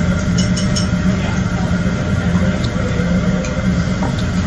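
Steady ventilation fan drone in a Korean barbecue restaurant, with a few light clinks of utensils on dishes, mostly in the first second.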